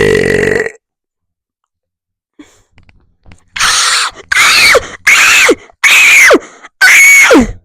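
Loud, distorted mouth noises made right against a microphone. A burp trails off in the first second, then after a pause come five short blasts, each ending in a sharply falling pitch.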